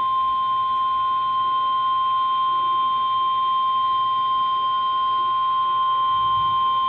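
Emergency Alert System attention tone: one long, steady, high beep near 1 kHz, cutting off abruptly at the very end, the alarm that comes before a flash flood warning is read.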